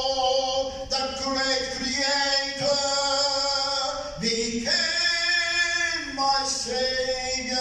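A man singing a slow worship song solo into a microphone, holding each note for about a second.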